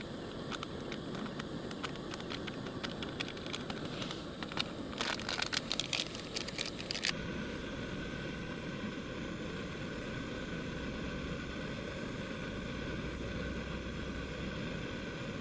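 Strong wind blowing on the microphone. For the first seven seconds a run of crackling, crinkling handling noises sounds over it, densest just before they stop abruptly.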